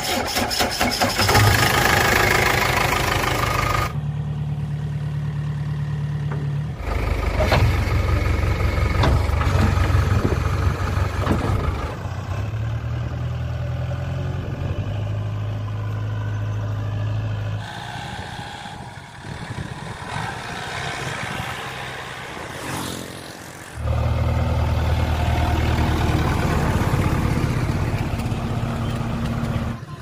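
JCB 3DX Eco backhoe loader's diesel engine running, idling and revving in turns, its pitch and level changing abruptly every few seconds.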